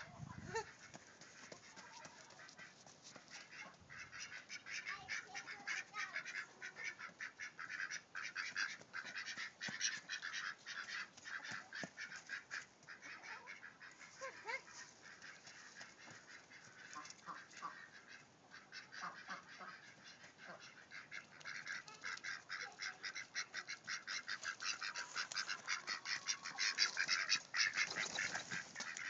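Ducks quacking in a fast, continuous chattering run of calls, growing louder over the second half.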